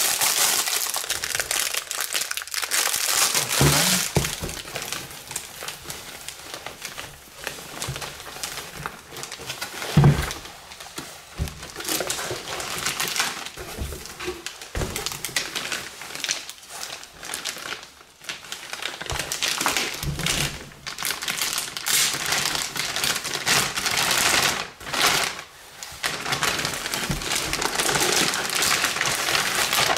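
Plastic packing bag and bubble wrap crinkling and rustling as a boxed item is unwrapped and handled, with a few dull thumps, the loudest about ten seconds in.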